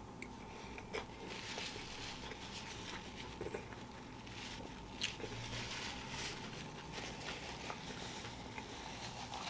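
Faint chewing of a mouthful of crispy fried chicken sandwich, with a few soft clicks, and a paper napkin rustling as hands and mouth are wiped.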